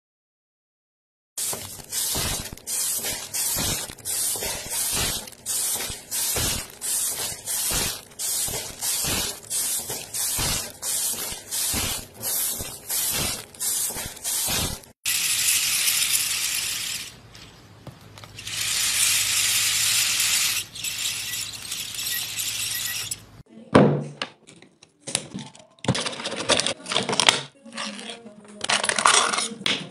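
Stacked thin tiled sheets clacking against each other as they are fanned, about two sharp clacks a second for some thirteen seconds. Then comes a stretch of steady hiss, and near the end a knife scraping and tearing through an aluminium drink can.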